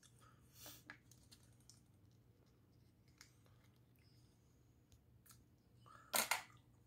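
Fingers peeling the shell off a steamed chestnut, faint small crackling clicks. Near the end a short louder rustle comes twice in quick succession.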